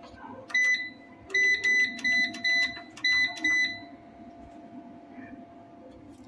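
Solar inverter's built-in buzzer giving about seven short, high, piercing beeps in quick, slightly uneven succession, then stopping. A faint steady tone sounds underneath throughout.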